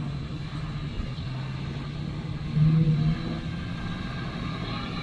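Unimog truck engine running under load, a steady low hum that rises in pitch and gets louder briefly about two and a half seconds in.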